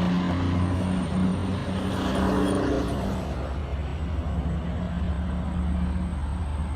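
A vehicle engine running steadily, a low continuous hum.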